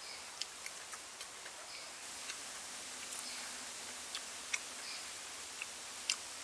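Scattered small, sharp clicks and crackles of crispy fried batter handled by fingers over a porcelain bowl. Under them runs a steady high hiss of forest background, with a few short high chirps.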